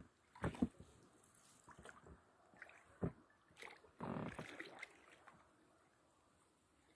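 Oars of a small rowing boat dipping and pulling through calm water: a few separate strokes with splashes and light knocks.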